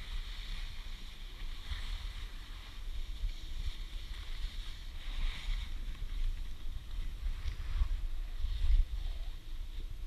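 Wind buffeting a body-worn action camera's microphone during a ski run, a gusting low rumble, with the hiss of skis scraping over groomed snow swelling every second or two as the skier turns.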